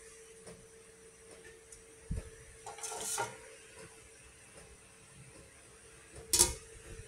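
An aluminium pot lid goes onto a steamer pot of cassava with one sharp metal clank near the end. Before it there is a soft knock and a brief rattle of cookware, over a faint steady hum.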